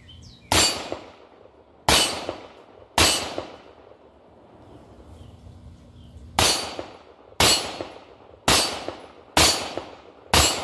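Freedom Ordnance FX-9 9 mm AR-style pistol firing eight single semi-automatic shots: three shots about a second apart, a pause of about three seconds, then five more about a second apart. Each report is followed by a short ringing ping as the bullet strikes a steel target.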